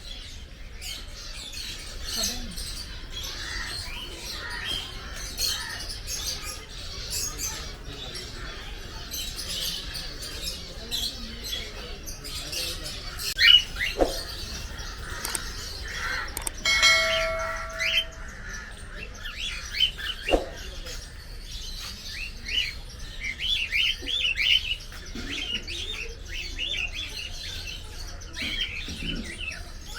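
Many birds chirping and twittering in quick short calls, thickening toward the end, with a brief held whistle-like tone a little past halfway.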